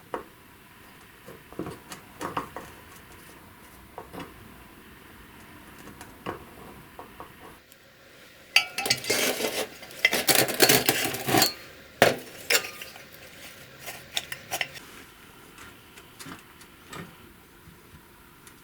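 Metal parts and tools being handled on a workbench: scattered clinks and knocks, with a burst of loud clattering and scraping from about eight to twelve seconds in.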